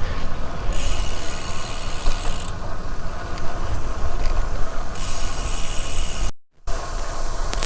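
Road bike's rear freehub ticking steadily as the rider coasts, over wind and road noise. All sound drops out briefly about six and a half seconds in.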